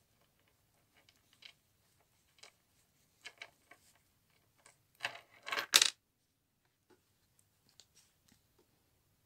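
Small silver bracelet charms and beads clinking and tapping against each other as they are handled, with a louder run of quick clinks about five to six seconds in.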